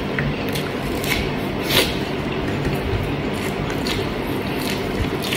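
A person chewing a mouthful of rice and chicken adobo with open-mouthed, wet smacking sounds, several short smacks over a steady background hiss.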